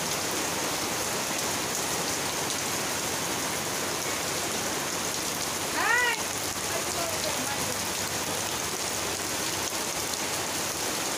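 Heavy rain falling steadily onto waterlogged, puddled ground. About six seconds in comes one brief high call that rises and falls in pitch.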